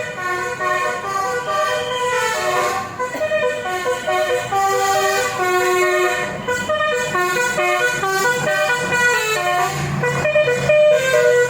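Basuri multi-tone melody horn on a vehicle playing a tune: a run of horn notes, several sounding together, changing pitch in steps every fraction of a second. A low engine hum rises under it near the end.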